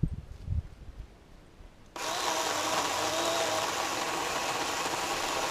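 A couple of dull low thumps, then, about two seconds in, a Stihl chainsaw starts running steadily and suddenly, with a buzzing drone.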